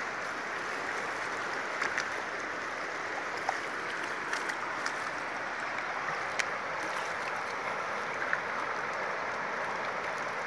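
Fast-flowing river water rushing steadily, with a few faint clicks scattered through it.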